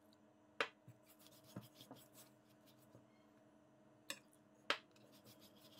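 Near silence with a handful of faint, short clicks: a glass and a wooden spoon lightly touching a stainless steel mixing bowl as water is added to the dough.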